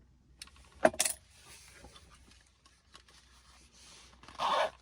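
Light metallic clinks and handling noise from working on a truck's shifter knob and its fittings, with two sharp clicks about a second in and a short rasp near the end.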